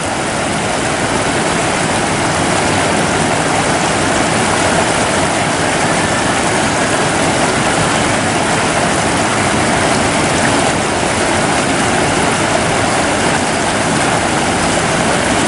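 Steady rushing of a shallow river running over rocks: an even, unbroken noise with no change in level.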